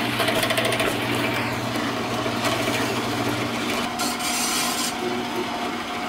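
Horizontal metal-cutting bandsaw running, its blade cutting through a steel exhaust-tubing donut with a steady rasping hiss. A low hum under it stops about three and a half seconds in.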